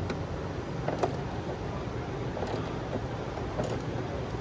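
Wrenches turning a bolt to set a threaded rivet nut: a few light metal clicks, about a second apart, over a steady low hum.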